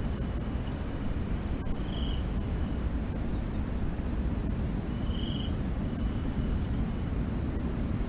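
Forest field recording: a steady, high-pitched chorus of insects over a low rumble of background noise. A short high chirp comes twice, about two and five seconds in.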